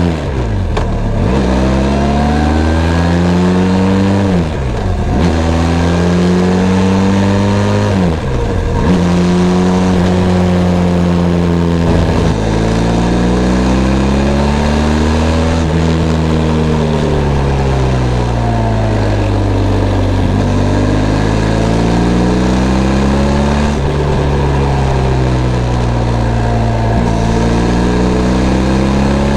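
Benelli TRK 502 X parallel-twin motorcycle engine under way: it climbs in pitch and drops sharply at upshifts about once at the start, about 5 seconds in and about 8.5 seconds in, then holds a cruising speed, its pitch rising and falling slowly with the throttle.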